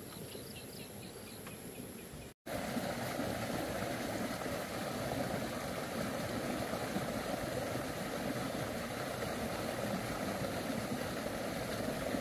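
An engine running steadily, cut in abruptly about two seconds in. Before the cut there is a quieter outdoor background with faint, rapid insect-like ticking.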